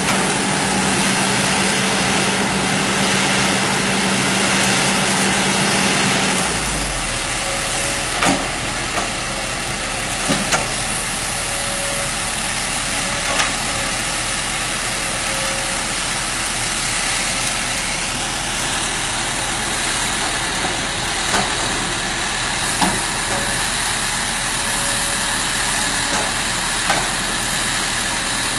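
Excavator engine running steadily under a loud even rumble and hiss. A low hum shifts about six and a half seconds in, and a few short knocks sound now and then.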